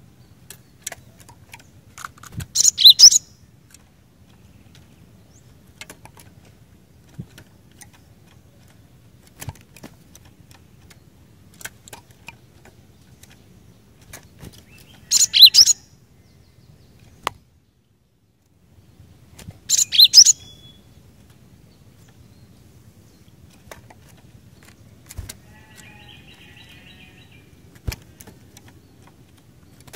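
Cinereous tit (gelatik batu) calling in three short bursts of rapid, high notes: one about three seconds in, one about fifteen seconds in and one about twenty seconds in. Faint clicks fall between them.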